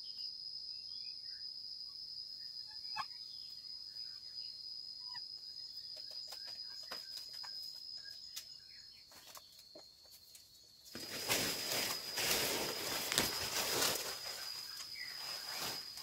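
Steady high insect drone with faint bird chirps and a few small twig snaps. From about eleven seconds in, loud rustling and crackling of leaves and dry bamboo lasts about three seconds as a person pushes through the undergrowth.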